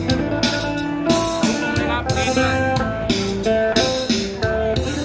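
Phin, the Isan Thai plucked lute, playing a melody of quick plucked notes.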